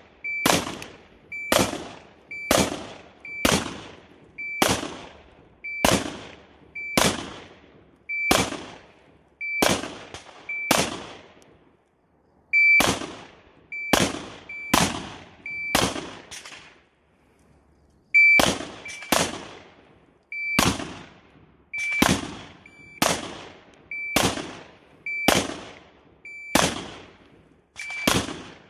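Semi-automatic carbine fired in a steady string, a shot about every two-thirds of a second, each with a short echo off the berm. The firing pauses briefly twice, near the middle and about two-thirds of the way in.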